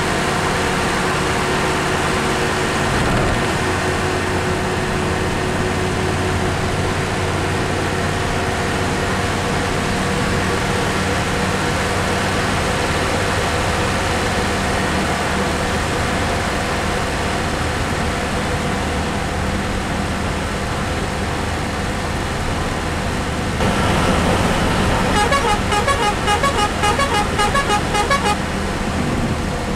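Leyland lorry's diesel engine running steadily at highway speed, heard inside the cab. About three-quarters of the way through, a rapidly pulsing multi-tone horn sounds for a few seconds.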